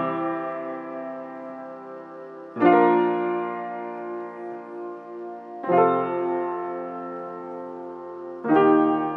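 Acoustic upright piano playing block chords with both hands: a fresh chord struck about every three seconds, three times, each left to ring and slowly fade.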